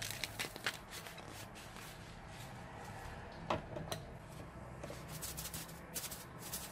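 Soft squishing and crackling of foam and a rubber glove being pressed and moved in a bowl. A few sharp clicks come in the first second, and a louder pair of pops comes about three and a half seconds in.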